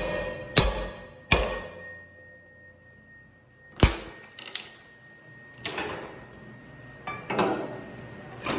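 Halligan bar being driven into a steel door's gap with a striking tool: three ringing metal-on-metal strikes in the first second and a half. Then the bar is levered against the door, with one loud sharp crack near the middle and several shorter rasping, creaking noises.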